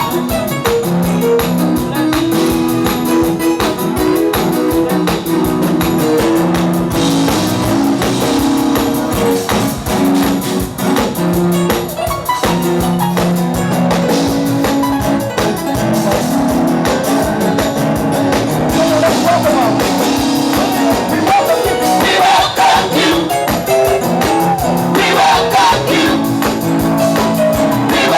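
Band music with drums and guitar over held chords; a singing voice comes in about two-thirds of the way through.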